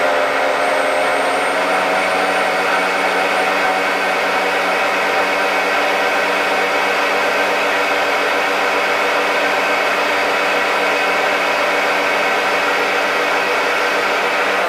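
Ninja hot and cold blender running steadily on its medium blend setting, its motor whirring as it purées a cooked sauce smooth.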